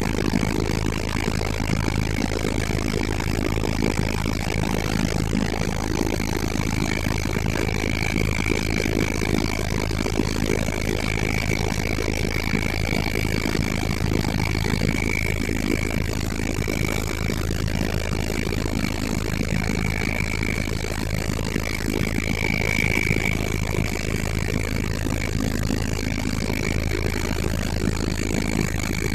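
Helicopter engine and rotor running steadily, a constant loud drone with a steady high whine over it.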